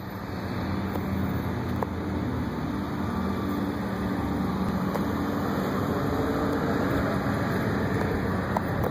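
Engine of a utility bucket truck idling steadily, with street traffic noise under it.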